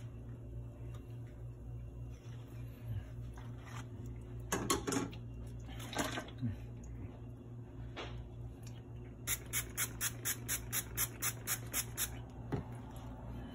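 A steady low hum with a few scattered knocks and scrapes, then a quick run of sharp clicks, about six a second for some three seconds, in the second half.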